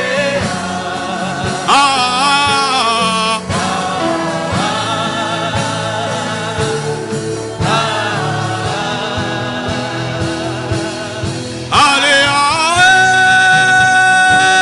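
Gospel worship music: sung phrases over instrumental accompaniment, the voice holding one long steady note near the end.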